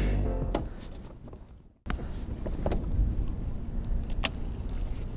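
Electronic intro music ending on a low held note that dies away, then, after a moment's break, a steady low rumble with a few sharp clicks.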